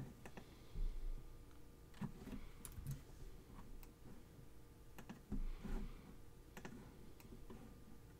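Scattered clicks of a computer mouse and keyboard keys, with a few soft low thumps in between.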